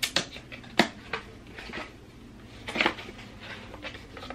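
Thin cardboard mailer box being folded by hand: a few sharp clicks and taps as the flaps crease and tuck in, the loudest just under a second in and again near three seconds.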